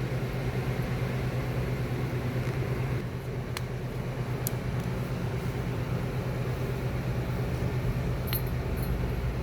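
Steady electrical hum of fiber laser welding equipment, fan and cooling unit running, with a few light metallic clinks as the steel pipe is handled.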